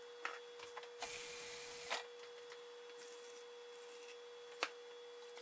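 Quiet kitchen handling sounds: a few light clicks and knocks of a plastic bowl and glass measuring cup on a digital kitchen scale, the loudest a sharp click near the end, with a short hiss about a second in and water poured thinly into the bowl. A faint steady hum lies underneath.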